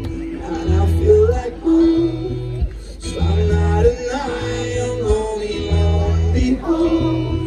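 Live band music: guitar over a repeating bass line, with a singing voice.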